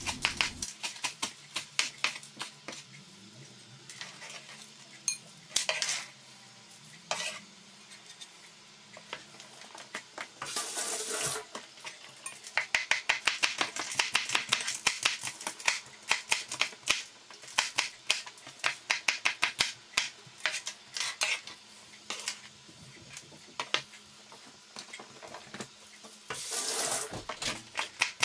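Chef's knife chopping parsley and then slicing thin green chili peppers on a plastic cutting board. It makes runs of quick, rapid taps of the blade against the board, with a few brief scraping sounds in between.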